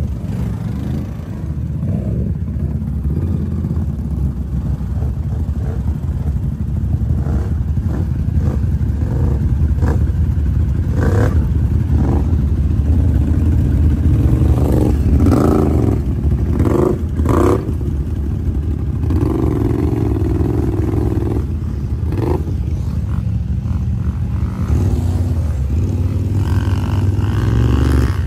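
Several Can-Am ATV engines running close by, with a steady low rumble, a few short revs and occasional clatter.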